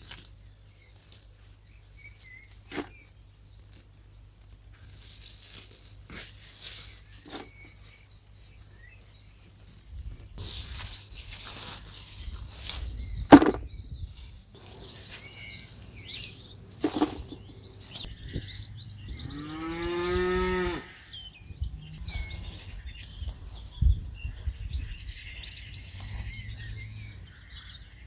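A cow moos once about two-thirds of the way through, a single call of a second and a half. Around it are scattered knocks and rustling, the loudest a sharp knock about 13 seconds in, over a steady low hum.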